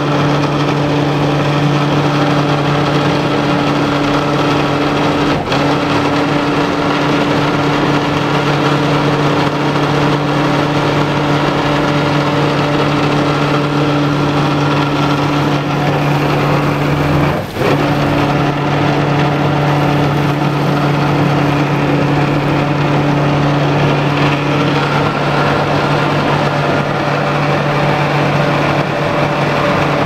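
Catamaran's Yanmar marine diesel engines running in a steady drone while manoeuvring the boat into a berth under joystick control, with two brief dips, about five and seventeen seconds in.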